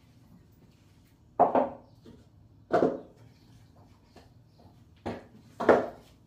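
Dog food bowls set down one after another on a kitchen table: four knocks, each with a brief ring, the last two close together near the end.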